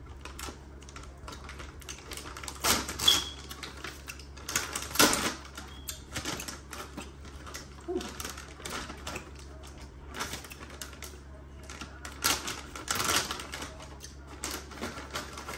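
Plastic candy bags and wrappers crinkling and rustling as candy is handled and sorted. The crackling comes in irregular short runs and is loudest about three seconds in, about five seconds in and again shortly before the end, over a low steady hum.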